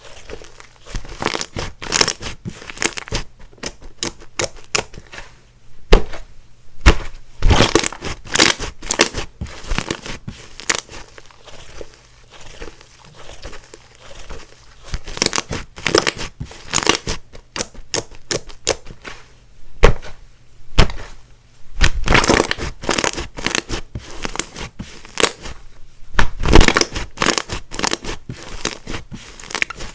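Clay-mixed slime being squeezed, stretched and pressed by hand, giving off clusters of sharp crackling pops and clicks.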